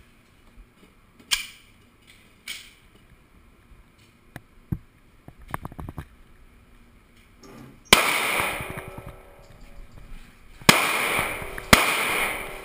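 Gunshots echoing in an indoor shooting range: two sharp reports early, some small clicks, then three much louder shots in the second half, each leaving a long echoing tail.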